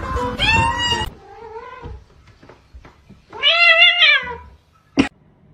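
Cat meowing: a fainter call early on, then a loud, drawn-out meow about three and a half seconds in whose pitch rises and falls. A single sharp knock near the end.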